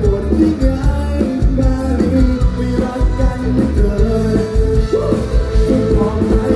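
Live band music through a PA: a male singer sings a wavering melody into a microphone over a drum kit and bass with a steady beat.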